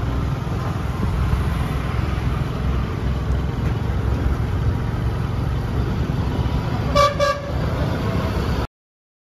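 Steady rumble of wind and road noise from riding a motorbike or scooter, with two short honks of a vehicle horn in quick succession about seven seconds in.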